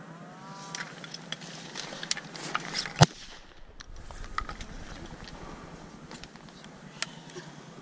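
Shotgun fire from a duck blind: one loud shot about three seconds in and a second, quieter shot near the end, with clicks and rustling of gear as the hunters rise to shoot.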